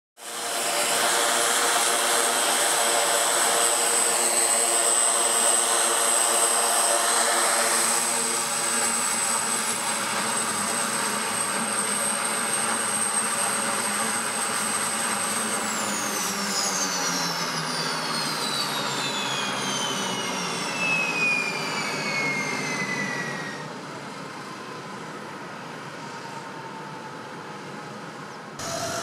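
Twin-turboprop PZL M28 Bryza running on the ground, a steady high turbine whine over the propeller drone. About halfway through, the whine falls steadily in pitch for several seconds as an engine spools down, and the sound drops to a quieter level.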